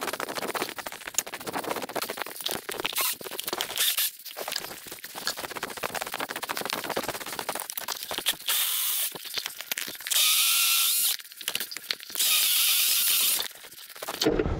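Footsteps crunching through snow, then a pole saw run in three short bursts of about a second each.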